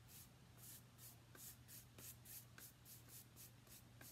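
Stencil brush dry-brushing paint across the face of a painted sign: faint, even brushing strokes, about four a second.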